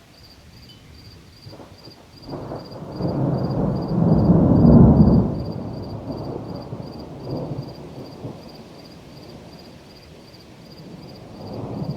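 A roll of thunder swells a couple of seconds in, is loudest around the middle and rumbles away, then a second, softer swell of thunder begins near the end.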